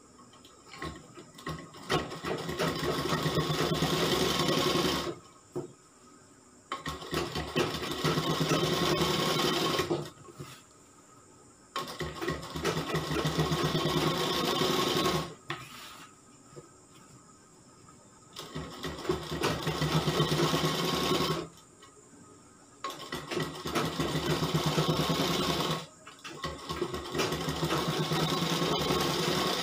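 Sewing machine stitching a seam in stop-start runs: five runs of about three seconds each, with short pauses between them while the fabric is repositioned.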